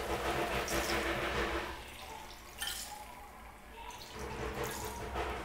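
Water pouring from a jug into a steel measuring cup and splashing over into the liquid of a metal pan of chicken curry. The pouring eases off around the middle and picks up again near the end.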